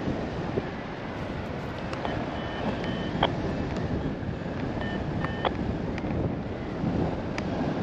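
Wind rushing over the microphone during a paraglider flight, with a few short, high electronic beeps from the flight variometer between about two and five and a half seconds in.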